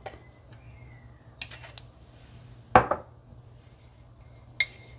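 Light clatter of a plastic measuring spoon and bowl while salt is spooned into warm water: a few soft clicks, one sharp knock about three seconds in, and a short clink near the end.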